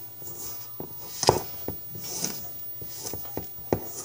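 Wire whisk beating a thick batter in a bowl, with irregular clinks and knocks of the whisk against the bowl, the loudest about a second in.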